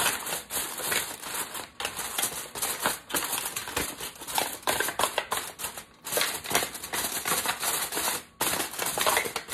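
Aluminum foil crinkling and crackling as it is pressed and crimped down around the edges of a baking pan: a dense run of small crackles, broken by a few short pauses.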